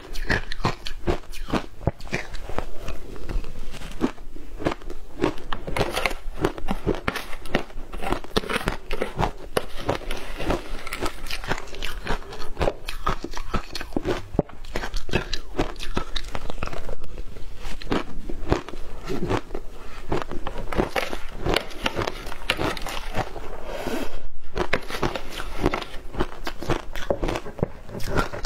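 Frozen matcha ice being bitten and chewed: dense, continuous crunching.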